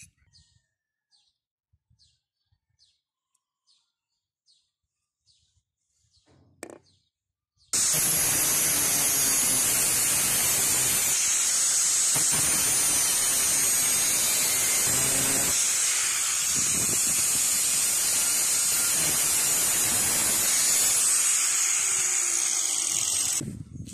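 A few faint ticks, then about eight seconds in an angle grinder's cutting disc starts cutting a steel tube lengthwise: a loud, steady grinding noise that cuts off suddenly near the end.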